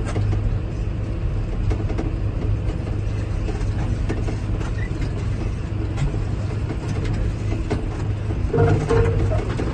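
John Deere 8RX tractor's engine running steadily under load, heard from inside the cab, while it pushes through floodwater with water washing around the front; briefly louder near the end.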